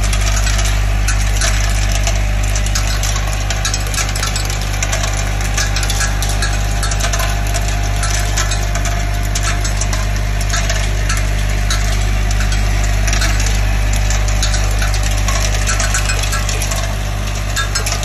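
Vibratory bowl feeder running, a steady low hum under a dense, continuous rattle and clatter of plastic microduct connectors jostling along its spiral track.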